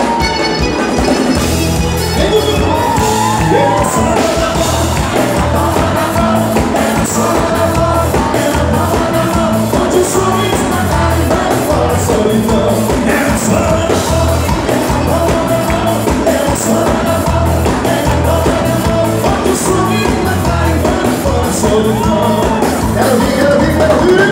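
Live sertanejo band playing: drums keeping a steady beat under bass, electric guitar and accordion, with shouts over the music.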